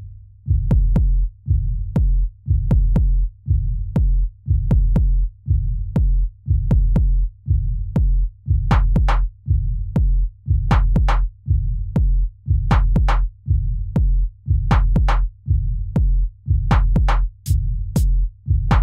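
Electronic music built on a drum-machine beat: a deep bass hit repeating a few times a second, each with a sharp click on top. From about eight seconds in, short bright high stabs join the beat.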